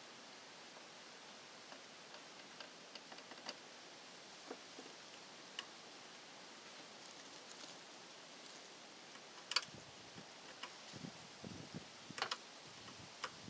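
Faint, scattered small clicks and ticks of tools and parts being handled during electrical wiring work. A few sharper clicks come about halfway through and again near the end, with low rustling handling noise in the second half.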